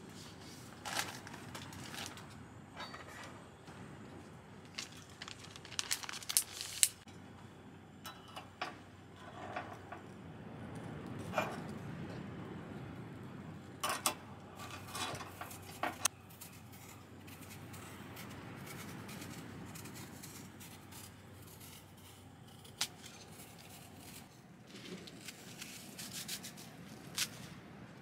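Cooking-utensil handling: metal tongs clicking and scraping on a stainless wire toasting grill as a slice of bread is turned, in scattered sharp clicks with a few clustered runs, over a low steady rumble.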